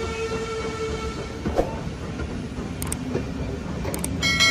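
Railway passenger coaches rolling slowly past on the track: a steady rumble of wheels on rail with a few sharp clicks of wheels over rail joints, and a ringing tone that starts near the end.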